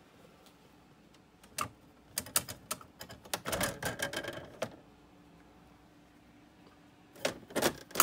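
Brother CE-50 daisy-wheel electric typewriter clicking and clattering. A run of sharp clicks about one and a half seconds in leads into a busy rattle lasting about a second and a half. A few more clicks come near the end as its clear plastic top cover is shut.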